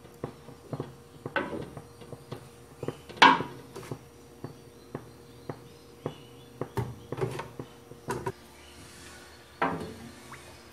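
Wooden spoon stirring oil in a large cooking pot, knocking against the pot's side about twice a second, with a few louder scrapes along the pot, the loudest a little over three seconds in.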